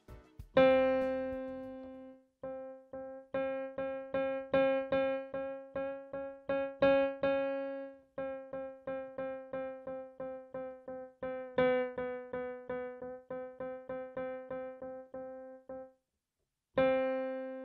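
NUX NEK-100 digital keyboard sounding one note struck over and over, a few times a second, while its A4 tuning is turned from 440 Hz up toward 452 Hz and back down to 439 Hz, so the note's pitch edges slightly up and then back down.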